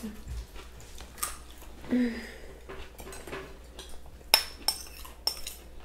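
Spoons and forks clinking and scraping against plates and bowls at a meal table, with three sharp clinks of a spoon against a bowl near the end.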